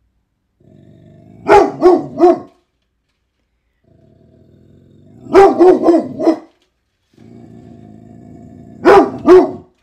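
A dog growls, then breaks into short runs of barks, three times over: three barks, then four, then two, each run led in by a low rumbling growl.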